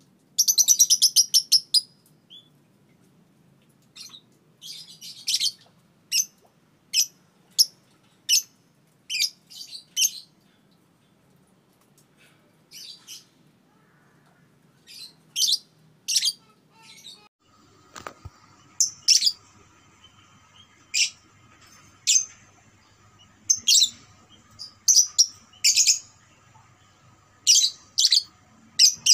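Young Fischer's lovebird calling: a long rapid chattering trill (ngekek) at the start, then a run of short, sharp, high-pitched chirps, singly and in quick clusters.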